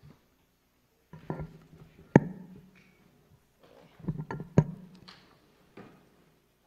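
Scattered, irregular knocks and thumps with quiet gaps between them. The sharpest comes about two seconds in, and a quick cluster of three follows near the middle. Each leaves a short low ring, the sound of handling or bumping picked up through the hall's microphone.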